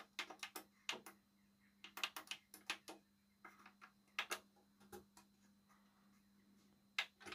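Plastic front-panel push buttons of a 1980s Hinari DP1 CD player clicking as they are pressed and released, in several quick clusters of faint clicks.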